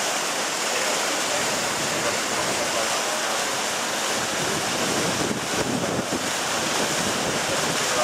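The Rio Horcones waterfall rushing down a rocky cascade between large boulders: a steady, even rush of falling water.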